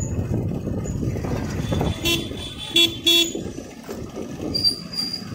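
A vehicle horn beeps three short times in quick succession about two seconds in, over the steady running noise of a moving motorcycle.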